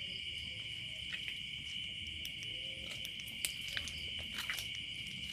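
Night insect chorus: a steady, high-pitched trill holding one pitch, with scattered short clicks and faint rustling over it.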